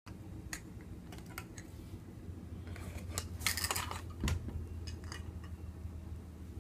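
Plastic toy food and toy kitchen utensils clicking and clattering as a small child handles them, with a denser burst of scraping and rattling about three and a half seconds in.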